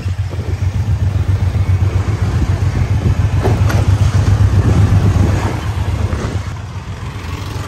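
Motorcycle engine rumble mixed with wind noise while riding along a street behind another motorcycle: a steady low drone that eases off near the end.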